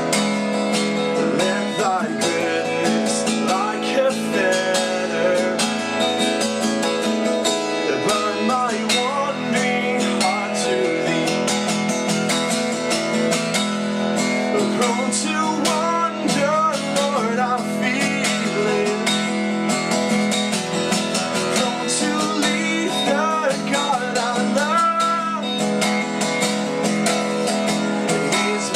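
Acoustic guitar strummed steadily through an instrumental break between hymn verses, with a melody line gliding above the chords.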